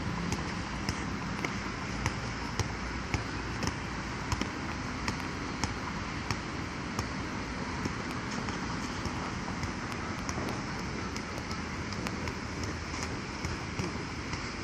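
A basketball is being dribbled on a hard outdoor court: sharp bounces come about every half second, then more sparsely in the second half. A steady rushing background noise lies under them.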